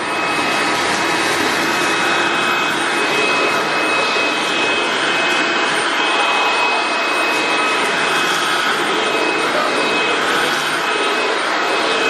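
Eufy S11 Infinity cordless stick vacuum running steadily on full power, with a constant high whine, sucking up cat litter from a hard floor.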